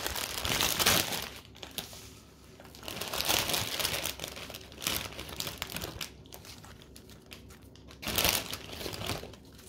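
Thin plastic bag of packaged salad greens crinkling as it is handled and shaken out over a bowl, in three bouts with the loudest near the end.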